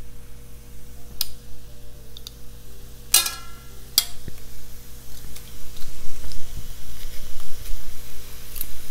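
Metal garlic press crushing garlic cloves over an electric skillet: a few sharp clicks, and a ringing metallic clink about three seconds in, over a faint sizzle of onions cooking in oil.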